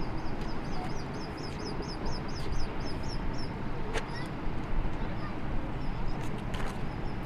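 Wind buffeting the microphone as a steady low rumble, with a rapid run of small high chirps during the first few seconds and a few sharp clicks later on.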